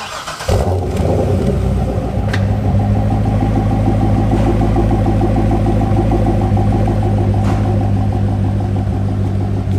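C6 Corvette V8 cold start through an SLP Loudmouth II exhaust: the starter cranks briefly, the engine catches about half a second in, then settles into a loud, steady cold idle.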